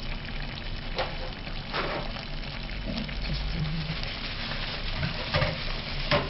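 Steady sizzling hiss of food cooking, with a few sharp knocks scattered through it.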